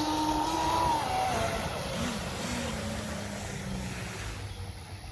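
Electric RC speedboat's motor whining as it runs on the water on a 2S battery with a three-blade prop. The pitch rises and then falls away within the first two seconds, then wavers lower.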